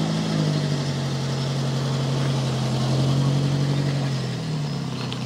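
Alfa Romeo Giulia coupé's twin-cam four-cylinder engine running steadily at low revs as the car creeps forward. The note drops slightly a little after four seconds in, then picks up again.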